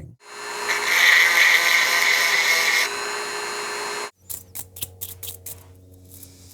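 A small power tool runs steadily for about four seconds, shifting to a lower level about three seconds in, then stops abruptly. Scattered clicks of handling follow.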